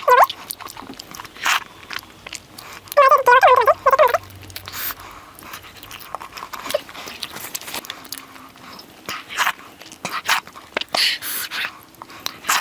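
Close-up eating of curry: wet chewing and mouth clicks, with a brief wavering pitched sound about three seconds in.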